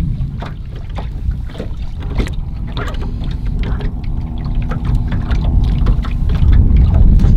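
Wind buffeting the microphone on an open fishing boat, with scattered knocks and water slapping at the hull. From about two and a half seconds in, a steady motor hum joins, in keeping with the boat's electric trolling motor running.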